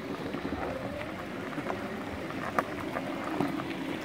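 Segway personal transporters rolling over a gravel path: steady tyre noise with the crunch and crackle of small stones, and a sharper click about two and a half seconds in.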